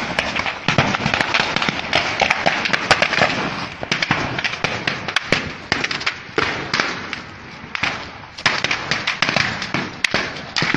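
Rapid, irregular gunfire: a dense string of sharp cracks and pops, several a second, that thins out briefly about seven seconds in.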